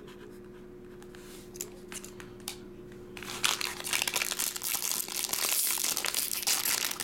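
A foil wrapper of a Topps baseball card pack being torn open and crinkled, starting about three seconds in as a dense crackling, after a few light clicks of card handling.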